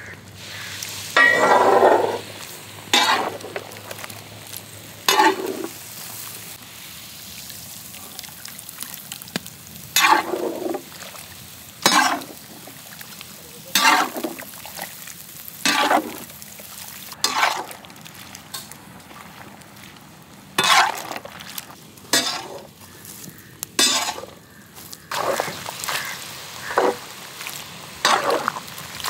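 Mutton pieces frying in ghee in a large iron wok with a steady sizzle, while a ladle stirs and scrapes through the meat in short strokes about every two seconds, coming faster near the end.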